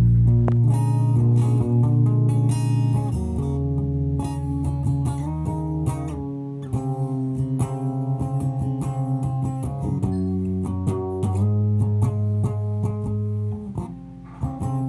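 Background guitar music: plucked and strummed guitar over a steady bass line.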